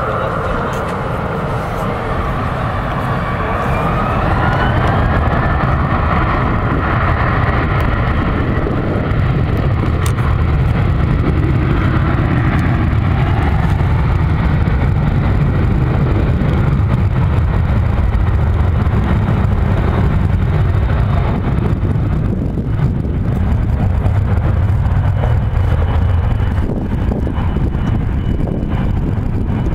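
Jet airliner engines running, a loud steady low rumble with a whine that rises in pitch in the first few seconds.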